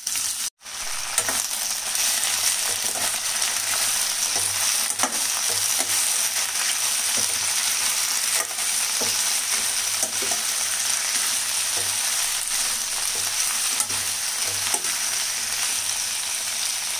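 Mustard oil sizzling in a stainless-steel kadhai as freshly added sem (Indian flat beans) and fried potato pieces are stirred with a metal spatula. Light scrapes and clicks of the spatula against the pan come through the steady sizzle. The sound cuts out briefly about half a second in.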